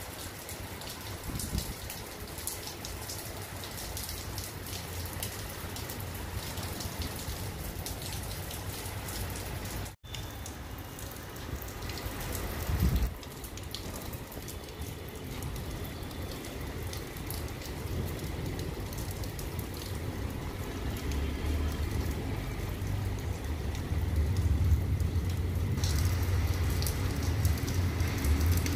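Rain shower pattering steadily on a wet rooftop, a dense hiss of drops, with gusty wind rumbling on the microphone that grows stronger in the second half. The sound cuts out for an instant about ten seconds in.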